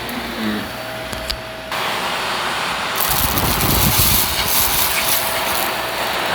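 Vacuum cleaner running, its noise changing abruptly twice: it grows fuller about one and a half seconds in and brighter and louder about three seconds in.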